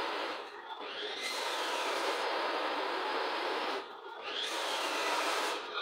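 A strong jet of compressed air hissing, easing off twice (about half a second in and near four seconds in) with a short whistle as it picks up again each time.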